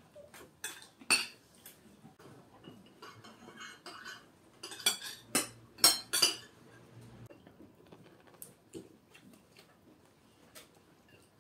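Forks and spoons clinking and scraping against plates as several people eat, in scattered sharp clicks with a busier cluster between about five and six seconds in.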